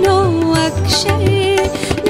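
Woman singing a Gujarati song live, holding wavering, ornamented notes over an instrumental accompaniment with a regular low pulse.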